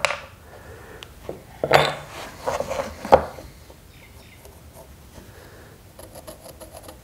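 Wooden hand-plane parts and dowel pins knocking and clicking together as they are handled on a workbench, with a few sharp knocks in the first half. Near the end there is a run of quick, light pencil-scratching ticks.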